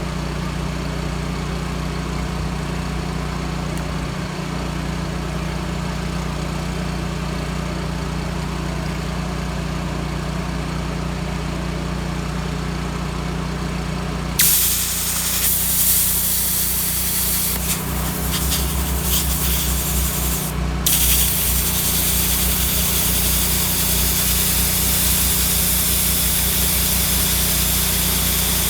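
Miller Trailblazer 325 welder-generator engine running steadily. About halfway through, a plasma cutter's arc starts with a sudden loud hiss and the engine picks up to full throttle under the load. The hiss breaks off briefly about three quarters in, then carries on.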